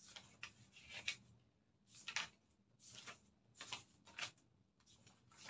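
Faint handling noises: about a dozen brief rustles and scrapes of paper, several coming in quick pairs at irregular intervals.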